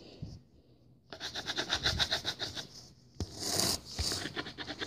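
Drawing on paper: fast back-and-forth scribbling strokes of a pen scratching across the sheet, starting about a second in, with a brief pause near three seconds before more strokes.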